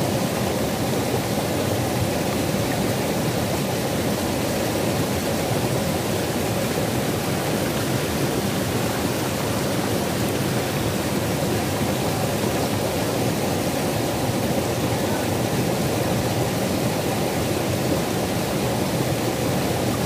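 Steady rushing of a shallow rocky mountain stream tumbling over boulders in small cascades.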